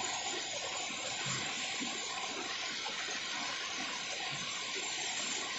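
River water rushing over rocks, making a steady, even rushing noise.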